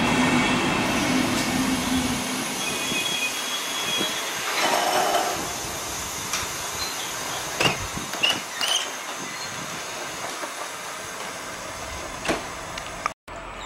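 Train of n-coaches rolling slowly past on the rails and braking to a stop, the wheel rumble dying away after a couple of seconds, with several short high brake squeals and clicks about halfway through.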